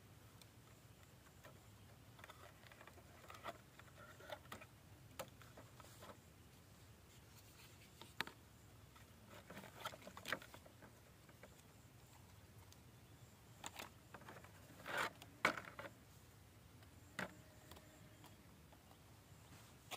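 Faint, scattered clicks, knocks and scrapes of small plastic and metal model parts being handled, as a miniature rotary tiller attachment is lifted out of a toy tractor trailer. The loudest knocks come in a short cluster about three quarters of the way through.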